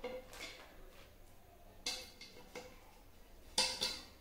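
A nonstick cookware set and its packaging being handled as it is unboxed: a handful of short knocks and rustles, with a louder pair near the end.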